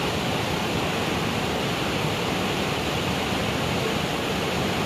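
Water rushing steadily and loudly, a constant unbroken roar.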